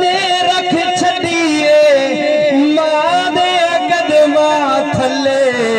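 A man's voice singing a Punjabi devotional verse in long, drawn-out notes that waver and glide, amplified through a microphone and PA loudspeaker.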